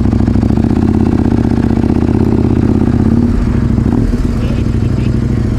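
Large adventure motorcycle engine running steadily at idle, loud and close, with an even, unchanging note.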